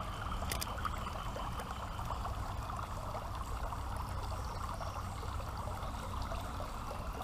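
Creek water running steadily, a constant trickling flow.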